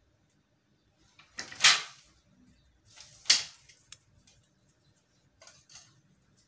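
Plastic packing strap being handled and cut to length: two loud rustling scrapes about a second and a half apart, then two fainter ones near the end.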